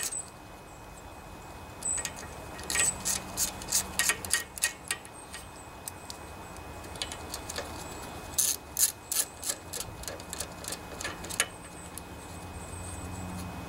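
Socket ratchet clicking as it backs out the valve cover bolts, in two runs of quick clicks: one about three seconds in and another about eight seconds in.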